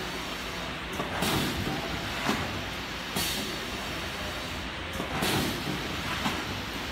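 LD420L liquid sachet packing machine running, filling and sealing ketchup pouches. A steady mechanical hum with a short hiss and clack about every two seconds as the sealing jaws cycle, plus a few sharp clicks.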